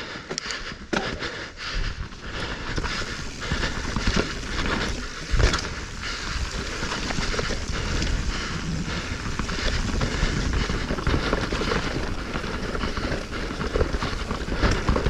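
Specialized Stumpjumper Evo Alloy mountain bike rolling fast down a dirt and rock trail: tyres on the ground, frame and drivetrain rattling, and a steady rush of wind on the microphone. It is dotted with frequent clicks and knocks, with one heavier thud about five and a half seconds in.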